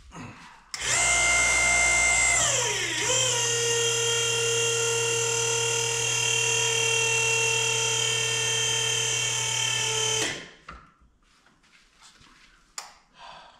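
Hydraulic pump of a tractor-splitting stand running with a loud whine while the stand draws the split tractor halves back together. The pitch drops once about two seconds in, then holds steady until the pump stops about ten seconds in.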